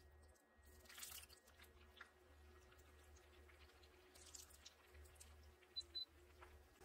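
Very faint, scattered crackling of kibbeh deep-frying in hot oil over a low steady hum. Two short high beeps near the end.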